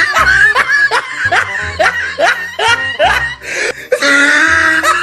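Laughter, a quick run of short rising bursts about two or three a second, over background music with a low beat.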